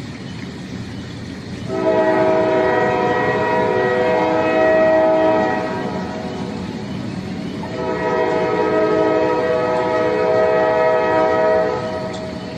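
A train horn sounds two long chords of several notes, each about four seconds, over the steady rumble of a moving train.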